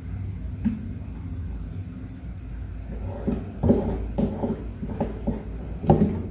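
A line being marked along a ruler on blouse fabric laid on a table: a light knock a little under a second in, then from about three seconds a run of short scraping strokes. A low steady rumble runs underneath.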